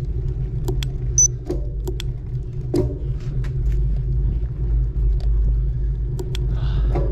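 Wind buffeting a camera microphone on a moving bicycle: a steady low rumble, with scattered sharp clicks and rattles from the ride.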